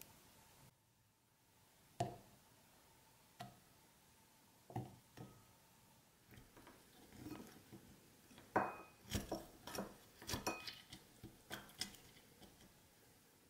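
Glass tumbler knocked as a lemon mojito is built: a few separate clinks in the first half, then about 8 seconds in a wooden muddler pounds lemon pieces against the bottom of the glass in a quick run of knocks, the glass ringing briefly twice.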